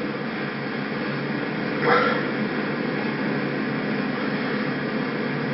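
Steady background hum and hiss of room tone, with one brief pitched sound about two seconds in.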